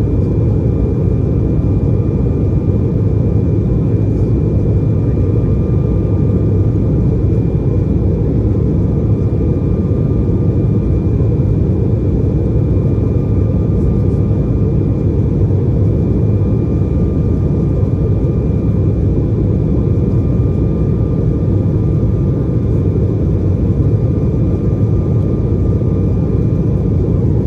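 Steady cabin roar of an Embraer E190 in the climb after takeoff, heard from a window seat over the wing: a deep engine and airflow rumble from its General Electric CF34 turbofans, with a thin steady whine above it that stops near the end.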